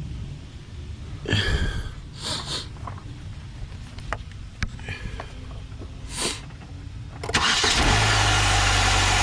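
A few clicks and knocks, then about seven seconds in the 2003 Chevy Cavalier's four-cylinder engine starts and runs steadily at idle.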